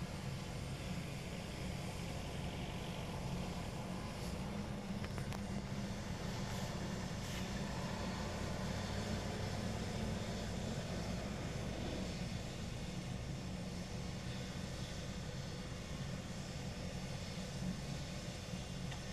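Ambulance helicopter running on the ground at idle, a steady low drone of its turbine engine and turning rotor that holds even throughout.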